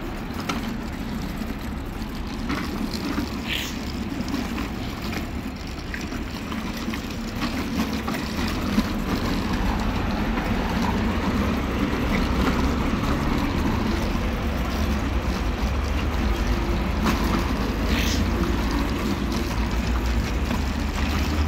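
City street traffic: cars idling and passing, a steady low rumble that gets a little louder about halfway through.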